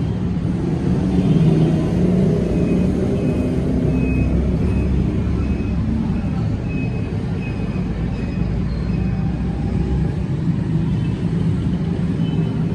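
Suzuki Every van's engine running steadily.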